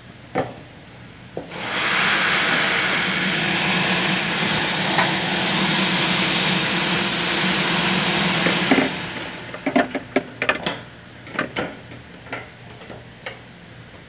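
A loud, steady hiss that starts abruptly and runs for about seven seconds before cutting off. It is followed by a series of light clicks and knocks as the fuel pump assembly and its rubber gasket are handled and seated in the fuel tank's access opening.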